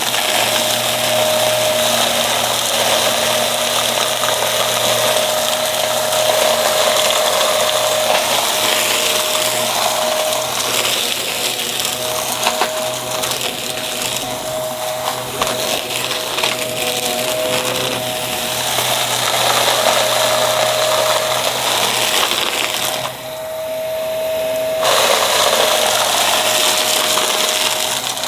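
Aspiron vacuum cleaner running steadily with a held motor whine, picking up crunchy debris that crackles and ticks through the nozzle. Near the end the hiss goes muffled for about two seconds.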